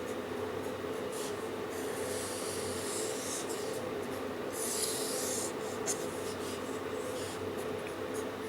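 Handwriting: several stretches of scratchy strokes, the longest about two to five seconds in, over a steady electrical hum.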